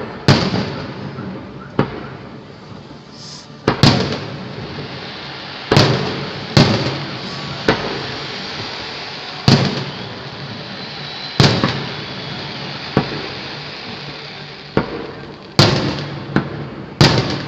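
Aerial fireworks shells bursting in a display: about a dozen sharp bangs one to two seconds apart, each trailing off in an echoing rumble, coming closer together near the end.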